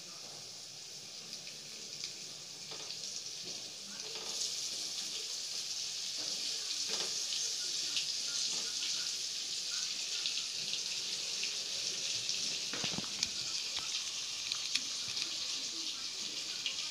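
Hot oil sizzling steadily in a kadai as stuffed whole brinjals fry in it, getting louder about four seconds in, with a few light knocks as the brinjals are set into the pan.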